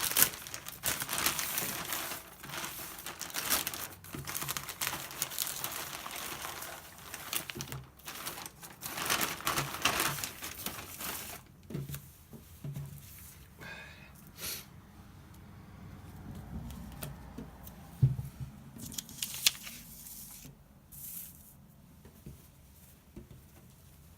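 Packaging being torn open and crinkled as a T-shirt is unwrapped, with dense rustling and tearing in the first half that thins to occasional rustles and handling clicks later on.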